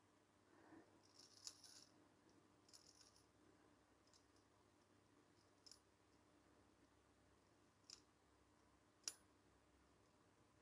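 Near silence broken by a handful of faint, sparse metal clicks from the brass movement of an Ansonia kitchen clock being handled, the sharpest about nine seconds in.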